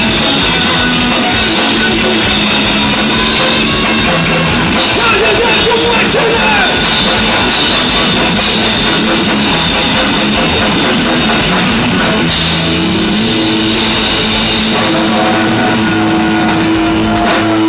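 Live heavy rock band playing loud: amplified instruments over a full drum kit, with long held notes ringing in the second half.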